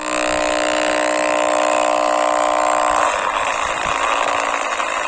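Small DC electric motor of a homemade propeller boat running with a steady whine. About three seconds in, the whine gives way to a rougher, noisier churn.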